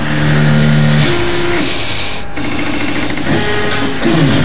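Stepper motors of a CNC plasma table's gantry whining as the axes run a G-code path: steady tones that jump to new pitches as the moves change speed, then sweep up and down near the end as the head speeds up and slows down. Motor tuning is not yet finished, so the motion is not fully smooth.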